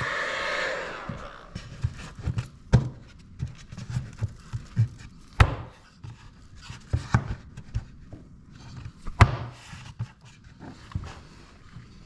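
Knocks, taps and thumps of hand work with tools and trim material, with three sharper clicks spaced a few seconds apart.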